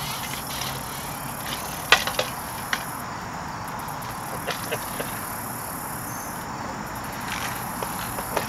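Insects, likely crickets, chirring steadily in a high band, with a few scattered sharp clicks and knocks from fishing tackle being handled.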